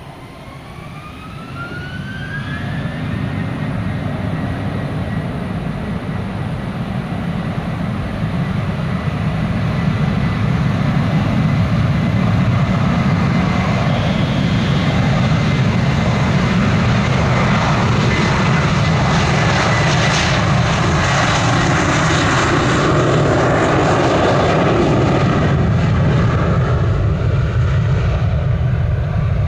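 Airbus A321-231's two IAE V2500 turbofans spooling up for takeoff, a rising whine over the first few seconds, then growing loud and steady at takeoff power as the airliner accelerates down the runway past the listener.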